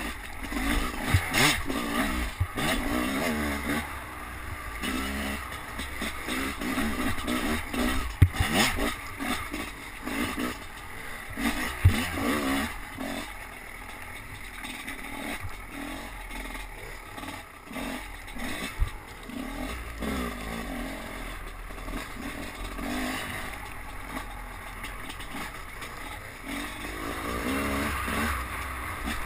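Enduro dirt bike engine revving up and down repeatedly as the bike is ridden over rough ground, heard from a helmet-mounted camera, with low wind rumble on the microphone. Sharp knocks break through twice, about 8 and 12 seconds in, as the bike strikes bumps.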